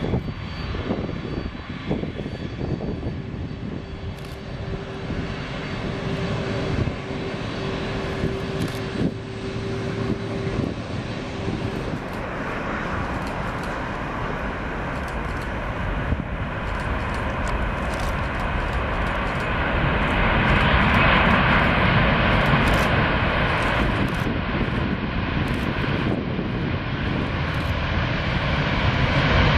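Boeing 747-400ER's four turbofan engines at takeoff thrust during the takeoff roll: a steady jet engine rumble and hiss that grows louder as the airliner passes, loudest about two-thirds of the way in. A steady hum runs for several seconds in the first half.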